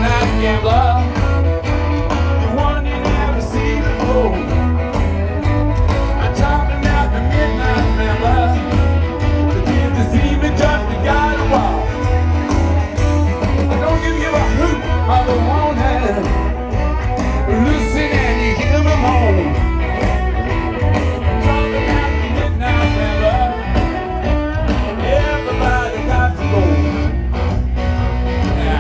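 Live rock band playing a blues-rock song at a stadium concert: a singer over electric guitars, bass and drums, heard from within the audience through a phone's microphone.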